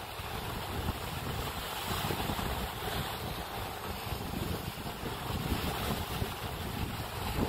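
Wind buffeting the microphone in a steady, gusting rumble over the wash of ocean waves against the rocks below.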